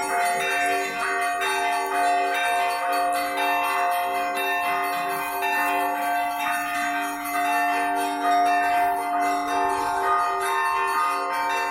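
Orthodox church bells rung together in a festive peal. Small bells are struck in a rapid, continuous pattern over the sustained ringing of larger bells.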